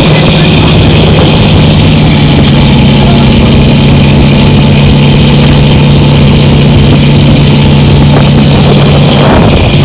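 A river ferry's diesel engine running with a steady low drone. It breaks off briefly near the end.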